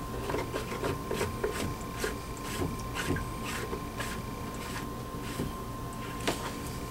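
Cover of a boat's air-conditioning seawater strainer being turned back on by hand: a run of small irregular clicks and rubbing from the lid and its threads, over a faint steady hum.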